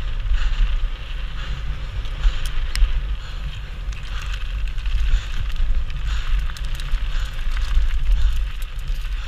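Mountain bike descending fast over grass and gravel: the tyres crunch and hiss on the dirt, with a few sharp rattles of the bike about two and a half seconds in. Heavy wind rumble on the handlebar-mounted camera's microphone.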